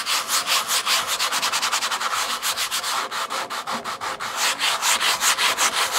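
Heavy-grit sandpaper scrubbing surface rust off the steel of an offset smoker, in rapid, even strokes, about five a second.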